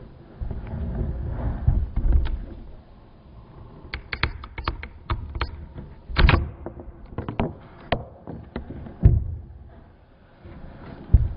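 Handling noise of wire cable and hand tools being worked: irregular metallic clicks and rattles, with a few louder knocks and low rumbling bumps.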